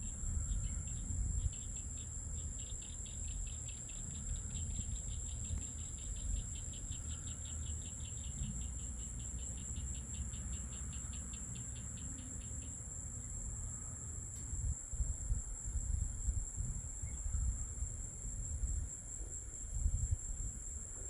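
Night insects calling: a steady high-pitched trill runs throughout, and a second insect chirps in a fast, regular pulse until about two-thirds of the way through. Low noise underneath swells at times near the end.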